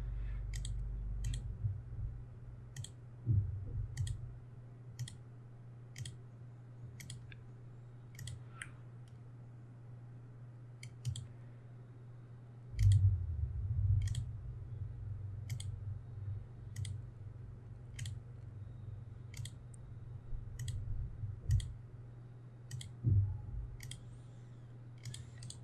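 Computer mouse button clicking at an even pace of about one click a second, sharp and high. A few dull thumps stand out under a low steady hum. The mouse is a noisy one, by its owner's own complaint.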